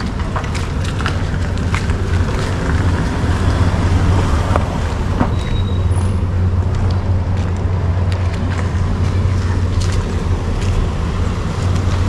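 Town street traffic: a vehicle engine running steadily with a low hum under general road noise.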